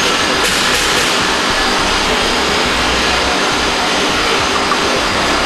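Steady, loud rushing noise without a clear pitch from the running lab-scale process kettle machine.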